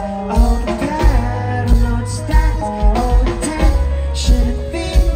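Live indie rock band playing a mid-tempo song, with a male lead vocal sung into a microphone over bass and a steady kick drum beat of about three thumps every two seconds.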